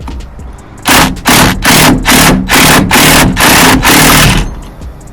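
Impact wrench hammering in a quick string of short bursts for about three and a half seconds, driving the center bolt of a steering wheel puller to pull the wheel off its column.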